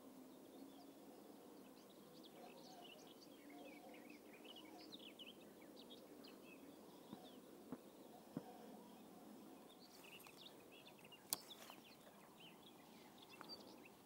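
Faint birdsong: scattered small bird chirps over quiet outdoor ambience, with a few sharp clicks, the loudest about eleven seconds in.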